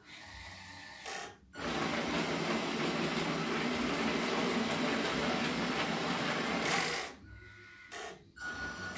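RC hydraulic excavator's pump running under load as valves feed the boom and arm cylinders. It runs quieter for the first second and a half, briefly cutting out. It then runs loud and steady for about five seconds and drops away near the end with two short spurts.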